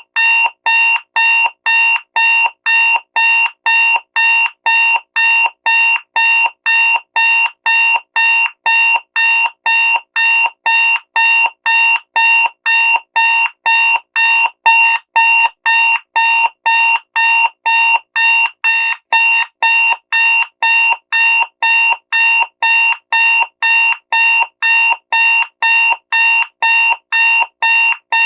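Loud digital alarm clock beeping, a rapid even run of short electronic beeps at about two a second, all at the same pitch.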